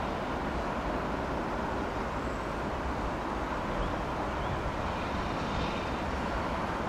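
Steady rumble and hiss of a freight train running, at an even level throughout.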